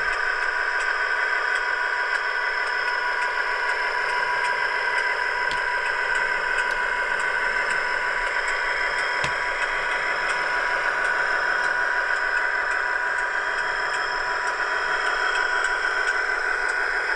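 Dapol OO gauge Class 59 model's built-in sound system playing a diesel engine sound through its small speaker as the locomotive moves slowly. The engine sound runs at a steady level and sounds thin, with no bass.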